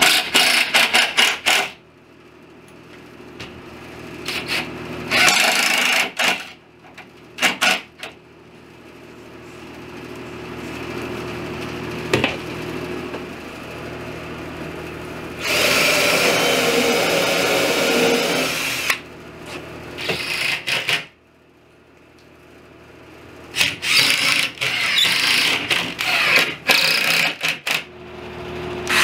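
Cordless drill run in short bursts and one longer stretch of about three seconds past the middle, pre-drilling and driving screws into a cabinet's top rail. A single sharp click comes a little after twelve seconds.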